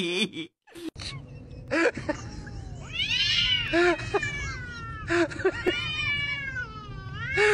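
Domestic cats in a standoff, yowling at each other: a run of long, wavering calls that rise and fall in pitch, the warning yowls of cats about to fight.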